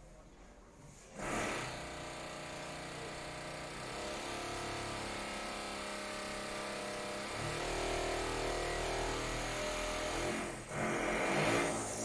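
A machine's engine, such as construction machinery, starts sounding abruptly about a second in and runs steadily. It grows heavier past the middle and is loudest near the end.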